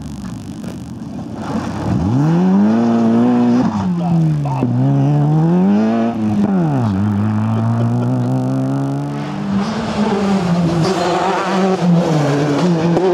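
Rally car engine under hard acceleration, climbing in pitch and dropping back at each of several quick gearshifts. About ten seconds in, a different rally car's engine takes over, held at high revs.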